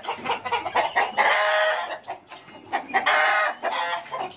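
Chickens of Mongol, Yunnan and Semani breeds calling in their coops: two loud, drawn-out calls, one about a second in and one about three seconds in, with shorter calls between.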